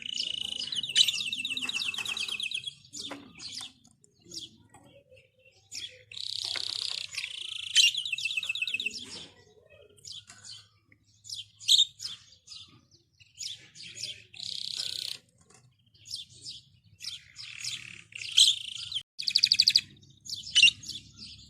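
Small songbirds singing: two long, rapid trilling songs, then many short chirps and brief bursts of song.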